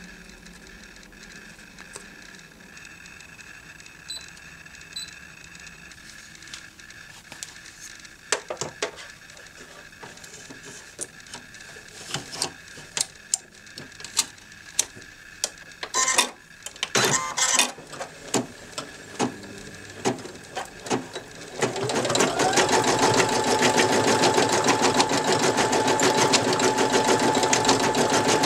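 Brother NV2600 embroidery machine: faint background at first, then a scatter of irregular clicks and knocks. About three-quarters of the way in it starts stitching, its motor tone rising and then holding steady under a fast, even needle rhythm.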